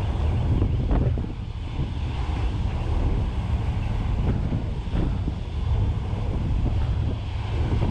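Strong wind buffeting the microphone in a dense, low rumble with brief gusts, over the rush of a stormy sea around the ferry.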